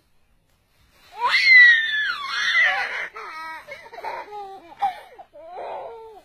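A toddler's loud, high-pitched squeal of laughter starting about a second in and gliding down, followed by a run of shorter laughing cries that fall in pitch.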